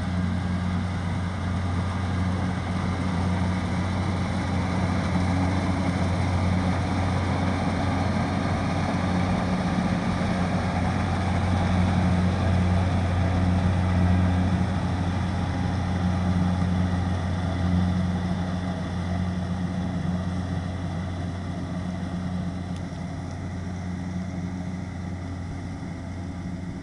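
Kubota DC-60 rice combine harvester's diesel engine running steadily with a low hum, growing louder to about the middle and then fading toward the end.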